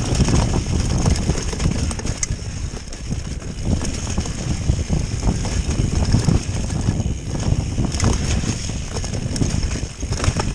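Mountain bike clattering and rattling over rough, rocky trail at speed, tyres rumbling on the ground, with frequent knocks from bumps and roots and wind buffeting the microphone.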